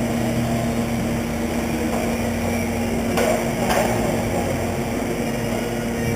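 Radio-controlled stock trucks running on a race track, a steady motor drone with two sharp knocks about three seconds in.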